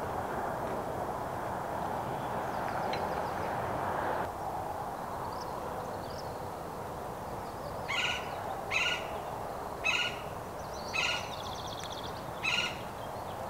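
A bird calling a short note five times, about a second apart, over a steady rushing background, with a faint high trill from another bird.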